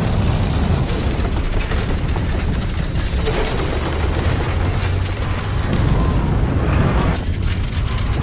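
Loud continuous rumbling roar thick with crackles and rattling clicks: film sound effects for a spherical balloon gondola buffeted in cloud.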